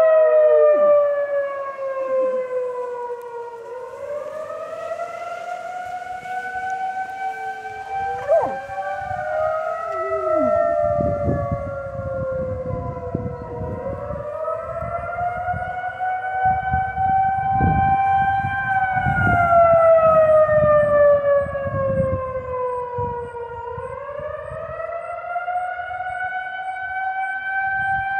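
Outdoor warning siren sounding its monthly test, its wail slowly falling and rising in pitch in long cycles. A Dalmatian howls along with it near the start and again about eight to ten seconds in.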